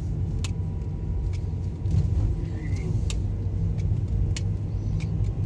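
A car running on the road, heard from inside the cabin: a steady low engine and tyre rumble, with a few light clicks scattered through it.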